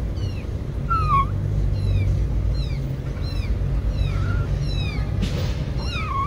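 Kittens mewing over and over in short, high, falling calls, about two a second, over a steady low rumble.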